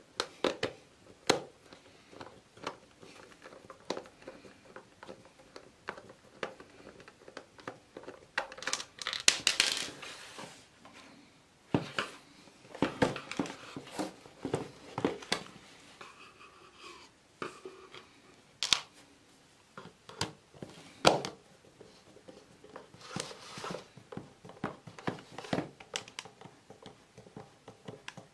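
Hand screwdriver driving screws into the plastic base of a portable fan heater: irregular small clicks and scrapes of the screws and the plastic housing being handled, with a few sharper clicks and a brief rustle along the way.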